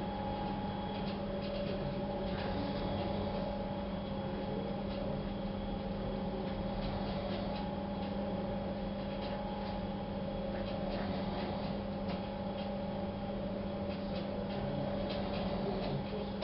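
Faint, irregular ticks and light scratches of drawing strokes over a steady electrical hum.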